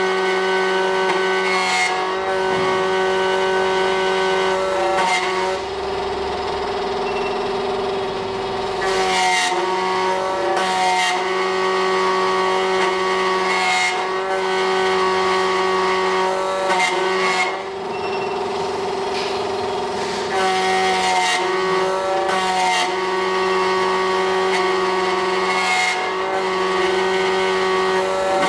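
SEC-E9 key cutting machine's motor and spinning cutter running steadily while milling a Schlage key blank, a steady whine whose higher tones shift every few seconds as the cutter moves along the key.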